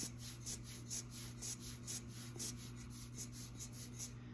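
Rubber bulb air blower squeezed over and over, giving short puffs of air at about three a second. A faint steady low hum runs underneath.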